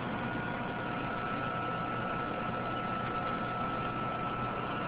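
Metal lathe running steadily with no cut being made, its spindle turning at about 166 RPM: an even mechanical hum with a thin, steady whine.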